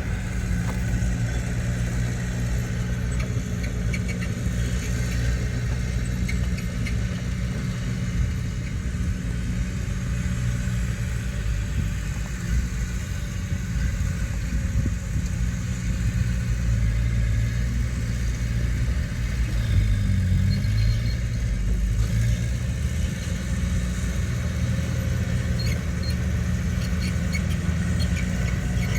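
Heavy earthmoving machine's engine running steadily with a deep, even hum that swells slightly about two-thirds of the way through.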